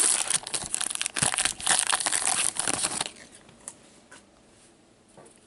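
A Goodwin Champions trading-card pack wrapper being torn open and crinkled by hand. The crinkling stops about three seconds in, leaving only a few faint taps.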